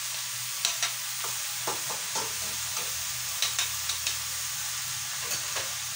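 Pinakbet vegetables and pork frying in a wok with a steady sizzle while being stirred, the spatula knocking and scraping against the pan at irregular moments.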